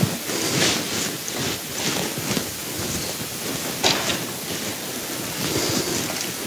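Quiet church room noise: a steady hiss with soft, scattered rustling and small clicks from the seated congregation, and one sharper click about four seconds in.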